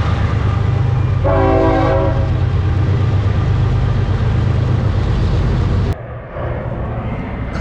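Loud, steady low engine rumble of a large passing vehicle, with a short horn blast about a second in. The rumble cuts off abruptly about six seconds in.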